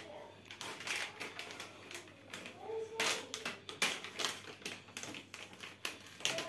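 Pudding mix sachets crinkling and being torn open by hand, in irregular crackles and sharp clicks.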